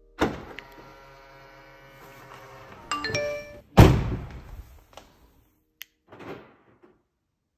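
Edited outro sound effects: a ringing musical chord about a quarter second in, a short chime near three seconds, and a loud deep thunk just before four seconds, the loudest of them. A smaller knock follows about six seconds in.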